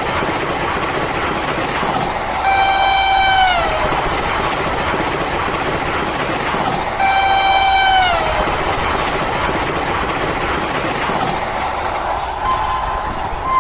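WAG-12 electric locomotive's horn sounding two blasts of about a second each, the pitch sliding down as each one ends, over the steady noise of the running train. A higher steady horn tone starts near the end.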